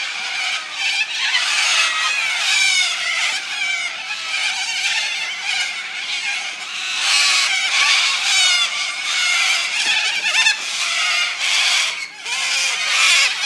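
A large flock of corellas screeching, many harsh calls overlapping into a continuous loud din.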